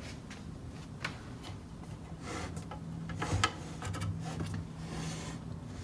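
A few sharp clicks and light rubbing as a mains power cord is handled and plugged into the back of a bench DC power supply.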